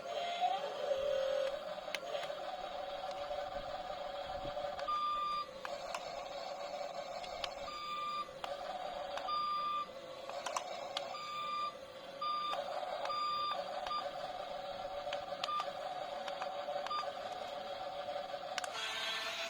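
Remote-control toy backhoe loader running, a steady electric whine with scattered clicks, and a string of short high beeps from about five seconds in to around fourteen seconds.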